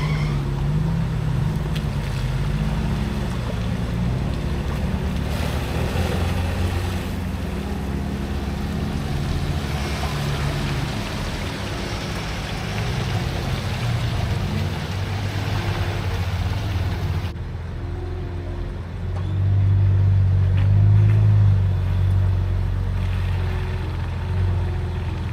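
A four-wheel-drive vehicle's engine running steadily as it drives, with road and tyre noise, growing louder for a few seconds near the end.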